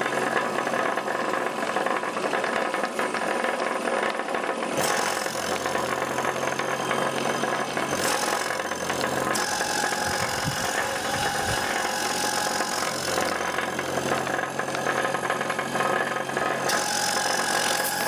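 York automotive A/C compressor, belt-driven by an electric motor on a VFD and pumping air, running steadily with a mechanical rattle and knock. A hiss over it shifts in brightness a few times.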